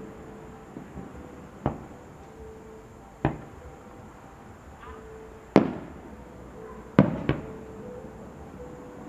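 Aerial firework shells bursting overhead: five booms one to two seconds apart, the two loudest a little past the middle. Each boom trails off in a short echo.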